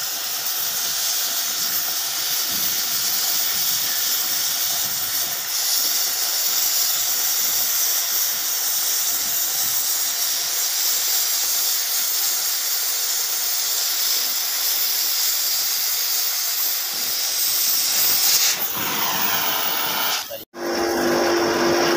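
Oxy-fuel cutting torch hissing steadily as its jet burns a circular hole through thick steel plate, blowing out molten metal as sparks. Near the end the hiss gives way, and after a sudden break a different steady sound with a held tone takes over.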